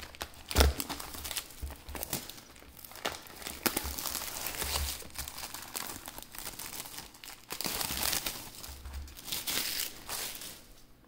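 Plastic shrink-wrap crinkling and tearing as a sealed Pokémon booster box is unwrapped, with irregular crackles and a sharper snap about half a second in.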